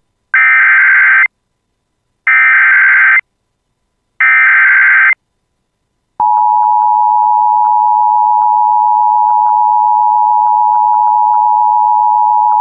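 Emergency Alert System SAME header: three identical bursts of warbling digital data tones, each about a second long with short gaps. About six seconds in, a steady, loud EAS attention tone starts and holds, with a few faint clicks over it, signalling that a warning message follows.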